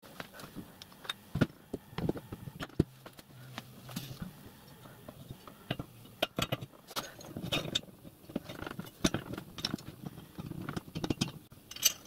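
Metal parts of a small model-railway riding-car chassis (steel frame, wheelsets, axleboxes) being handled and fitted by hand: irregular light clinks, taps and knocks of metal on metal.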